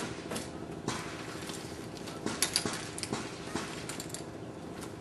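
Scattered light clicks and knocks, a cluster of them a little past halfway, over a steady low hum.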